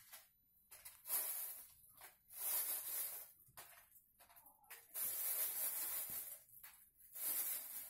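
Rustling hiss in four separate bursts of about a second each, as dry materials are handled close by.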